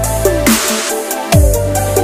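Electronic background music: deep bass notes that slide down in pitch, over sharp drum hits.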